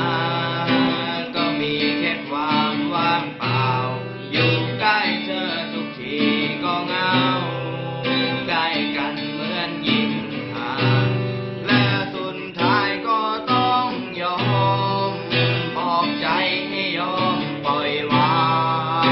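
Acoustic guitar strummed and picked, playing a song.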